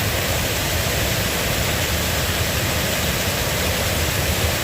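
Creek waterfall rushing in a steady, even roar of water, running wider and stronger than usual, swollen after a day and night of rain.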